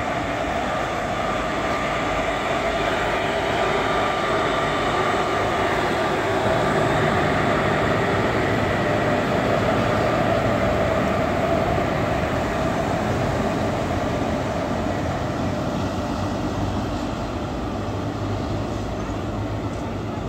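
Electric locomotive and its passenger coaches running past on the rails: a steady rumble of steel wheels on track with a thin whine over it, swelling toward the middle and easing off near the end.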